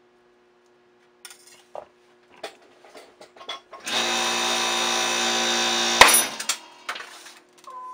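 A few light clicks of the steel donut die being handled, then a powered press runs steadily for about two seconds, building pressure on the die. About six seconds in, a single sharp crack as the die shears through the sheet metal, blanking the part and its centre hole at once, and the press sound stops right after.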